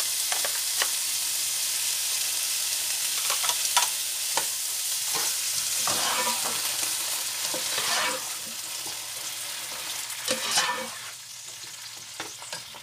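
Diced vegetables sizzling in a nonstick sauté pan while a spatula scrapes and stirs them, with repeated short scrapes and knocks against the pan. The sizzle dies down near the end.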